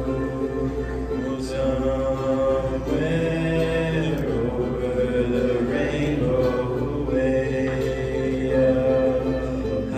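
Two voices singing a slow song together in long held notes into microphones, with strummed small acoustic stringed instruments underneath.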